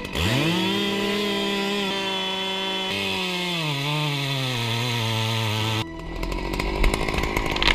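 Husqvarna chainsaw revved quickly to full throttle and held there. Then its pitch drops and wavers as the chain bites into a tree trunk under load. Just before six seconds in, the steady engine note breaks off abruptly into a rougher, noisier saw sound.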